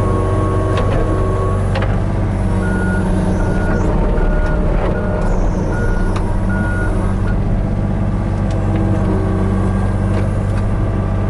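A Hitachi 35U mini excavator's diesel engine runs steadily. A reversing alarm beeps about six times in the middle, and a few short knocks come through.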